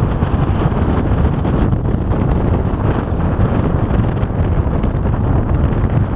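Wind buffeting the microphone of a passenger riding in the back of a moving van, over the van's steady road and engine noise.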